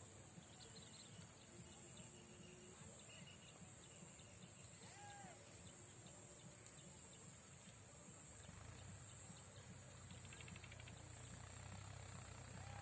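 Faint evening countryside ambience: insects keep up a steady high-pitched drone, with a few scattered bird chirps. About two-thirds of the way through, a low engine hum comes in and grows slightly louder.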